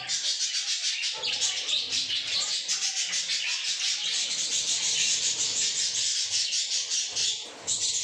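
A colony of budgerigars chattering and chirping together in a dense, continuous high twittering, with a brief lull near the end.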